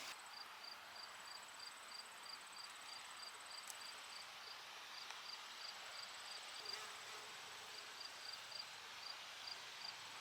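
Faint insects chirping in a steady rhythm, about three chirps a second, with a thin high trill running underneath.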